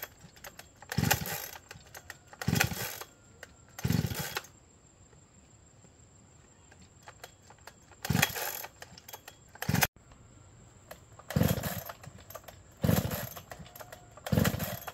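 Two-stroke chainsaw being pull-started: about seven sharp yanks of the recoil starter cord, each a brief rasping turn-over of the engine that dies away at once, so the engine does not catch.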